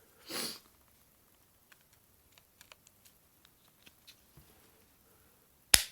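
Faint plastic ticks and taps from handling a Bird S296 mobile phone and its battery, with a brief rustle at the start. Near the end comes one sharp plastic click, the battery being snapped into the phone.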